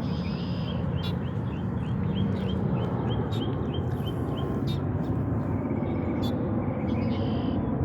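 A bird chirping in a quick series of short, high notes, about three a second, which stops a little over halfway through, with a few fainter notes near the end. Under it runs a steady low rumble.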